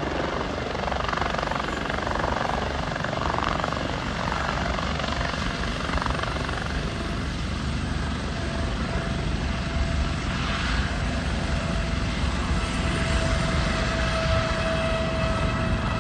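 Air-ambulance helicopter touching down and running on the ground with its rotor turning: steady turbine and rotor noise with a fast, low, even beat. A steady whine comes in about halfway.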